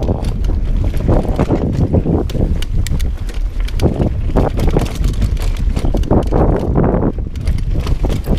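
Mountain bike rolling fast down a dirt singletrack: tyres rumbling over dirt and roots, with frequent rattles and knocks from the bike, and wind buffeting the camera's microphone.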